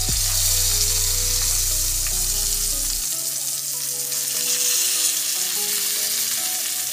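Breaded oyster mushrooms sizzling in olive oil in a frying pan on medium-low heat: a steady frying hiss.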